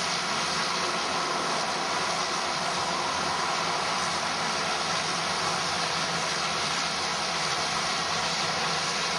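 Steady roar of a small twin-engine turboprop plane's engines as it rolls up the runway toward the apron after landing.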